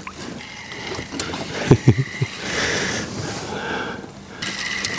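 Hooked pike being landed beside an aluminium boat: splashing at the surface and a few sharp knocks about two seconds in, over a faint steady whine from the boat's motor.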